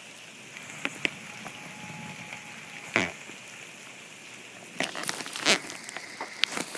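Rain falling in a steady hiss, with scattered sharp drops striking close by, a cluster of them about five seconds in.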